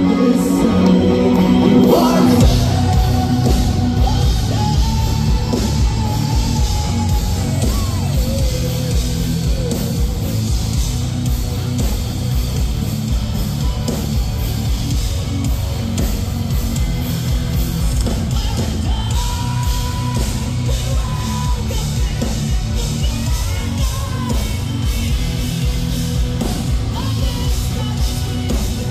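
Progressive metal band playing live: about two seconds in, distorted guitars and fast, pounding drums come in under sung and yelled vocals with long held notes, captured on a phone microphone in the crowd.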